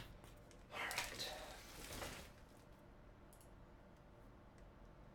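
Trading cards and pack wrappers being handled: a brief rustle about a second in, then a few faint clicks.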